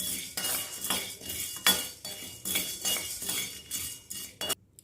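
Spatula stirring dry-roasting urad dal and chana dal in a kadai, scraping and clinking against the pan in repeated strokes, with no oil in the pan. The stirring stops abruptly near the end.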